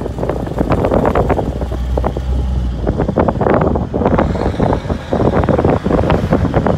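Wind buffeting the microphone in irregular gusts over the steady low rumble of a moving pickup truck, heard from its open cargo bed.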